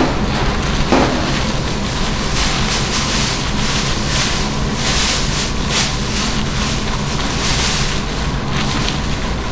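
Steady low hum and hiss of shop background noise, with short crinkling rustles of plastic-gloved hands rolling gimbap on a cutting board.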